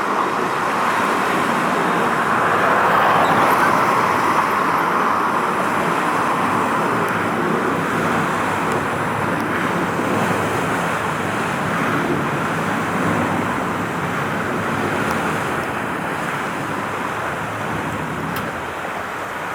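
Steady hiss of road traffic, a continuous wash of passing cars, swelling a little a few seconds in and easing off slowly.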